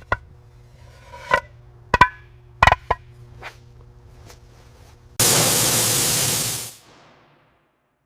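Several sharp knocks, some with a brief metallic ring, over a steady hum. About five seconds in comes a loud burst of hiss lasting a second and a half, which then fades out.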